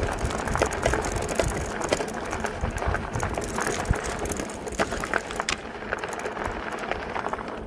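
Bicycle rolling over a rough dirt path, the bike and its load rattling and clicking, with a ratcheting freewheel tick and wind rumble on the microphone; it gets a little quieter toward the end.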